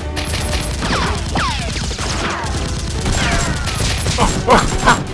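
Rapid gunfire sound effects: a dense volley of shots laid over a firefight, growing louder near the end. Repeated falling whistling tones and a steady low rumble run underneath.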